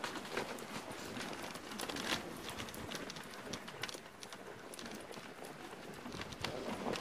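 Dog sled moving over snow: the patter of the running sled dogs' paws over a steady scraping hiss.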